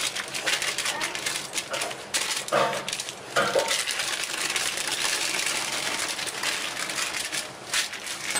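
Thin butter-paper sheets rustling and crinkling under the hands as cashew dough is pressed flat between them and the top sheet is peeled back.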